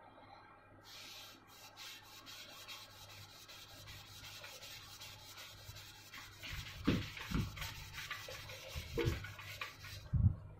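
A hand-held pad rubbing back and forth along the bare metal tubes of a fat-bike frame: a scrubbing hiss of many short strokes, starting about a second in and getting louder in the second half, with a few dull knocks.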